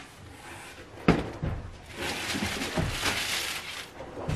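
Clear plastic bag wrapping crinkling and rustling as bottles are unpacked from a cardboard box, with a sharp knock about a second in and a smaller one near the end.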